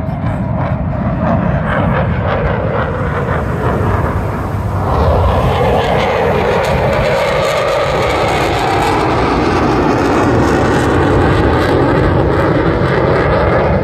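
Aircraft engine noise as a plane flies past, loud and continuous. It swells about five seconds in and stays loud, its pitch sagging and then rising again.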